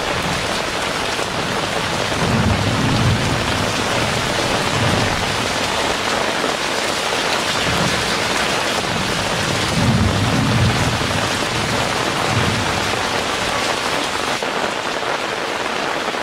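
Heavy rain pouring steadily, with low rumbles of thunder about two seconds in and again about ten seconds in.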